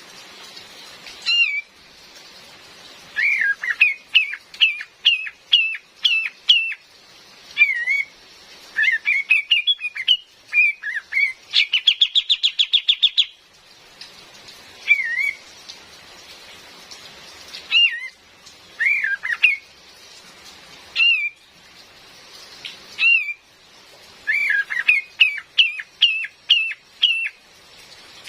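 Female white-rumped shama calling: runs of short, sharp hooked notes in bursts separated by pauses, with one harsh rapid rattle about halfway through, over a steady hiss of rain.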